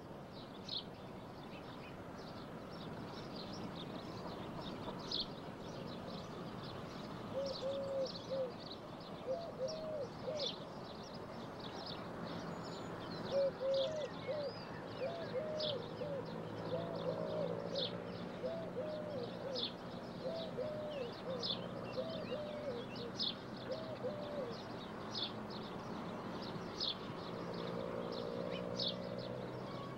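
Birds chirping with many short, high calls through the whole stretch, and from about seven seconds in a lower cooing call repeated again and again, over a faint steady background.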